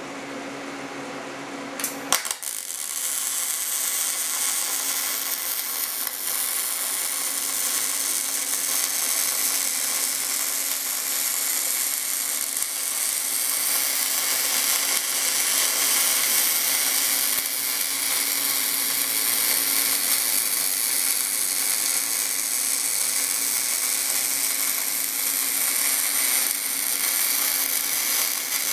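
A steady hum, then a MIG welding arc strikes with a sharp click about two seconds in and crackles steadily in short-circuit transfer (.035-inch E70S-3 wire, 75/25 argon-CO2 gas, about 17.6 volts) as a Boa308i bore welder's torch lays a bead around the inside of a small bore.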